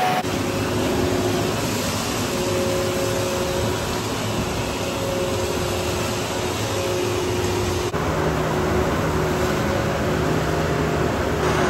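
Vacuum excavation truck's suction hose running, a steady loud rush of air and soil drawn up the hose over a low machine hum. The sound dips briefly about eight seconds in and continues with a lower hum.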